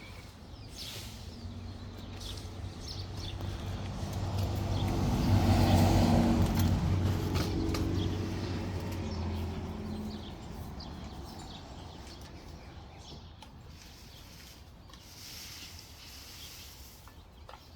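A motor vehicle passes by: its engine grows louder to a peak about six seconds in, then fades away.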